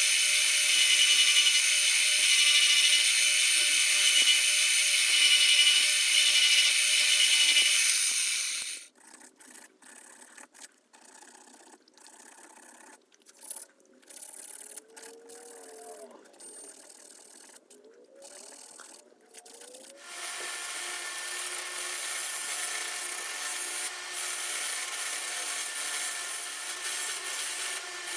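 Metal shop work on vise parts. A power tool runs steadily for about eight seconds and stops. Next come scattered small clicks and knocks with a few brief squeaks as the parts are handled. Near twenty seconds in, a steady rubbing, sanding or filing noise starts and runs on.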